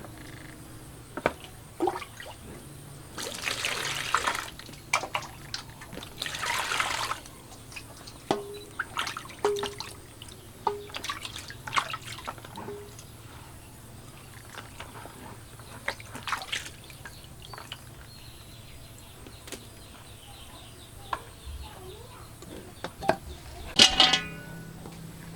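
Water poured or splashed twice in short rushes, with scattered clicks and knocks of kitchen utensils and a loud ringing clink near the end.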